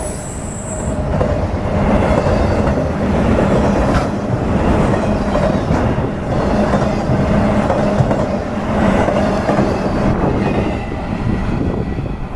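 A train passing close by, with a steady rumble of wheels on the rails. A brief high wheel squeal fades out about a second in.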